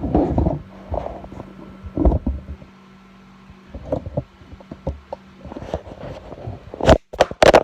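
Irregular knocking and handling noise over a steady low hum, ending in a cluster of loud sharp knocks broken by brief dropouts, as the camera drops off.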